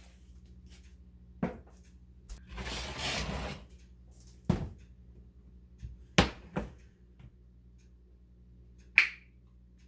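Kitchen containers and jars being handled and set down on a wooden countertop: several separate knocks and clicks, a brief rustle a little after two seconds in, and a sharp, slightly ringing click near the end.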